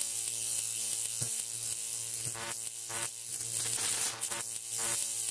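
A steady electric buzz with a bright hiss over it and a few faint clicks, starting and stopping abruptly.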